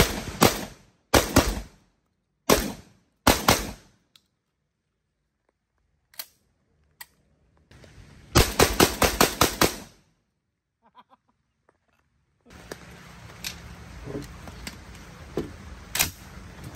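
Sulun Tac-12 shotgun firing: several loud shots in the first four seconds, then after a pause a fast string of about seven shots in under two seconds. Near the end, small metallic clicks of shells being pushed into the magazine tube.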